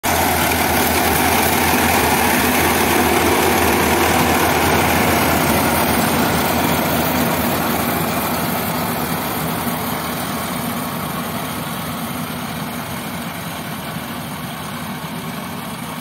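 Changfa CF608 combine harvester running as it cuts standing rice: a steady, dense drone of engine and harvesting machinery that grows gradually fainter over the second half as the machine moves away.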